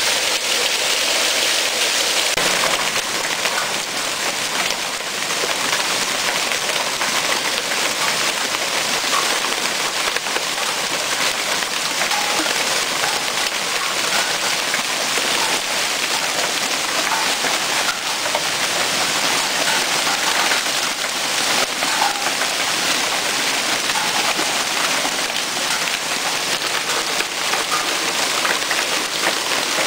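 Hailstorm: hailstones and heavy rain pelting down steadily on the ground, deck and roof.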